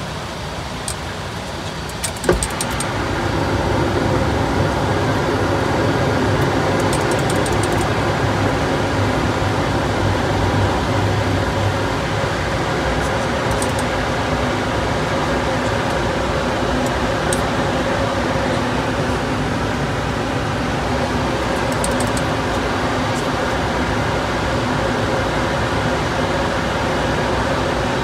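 Steady cockpit noise of a Dornier 328Jet in flight: a rush of air with a steady hum and a few held tones. After a click a couple of seconds in, it grows louder and then holds steady.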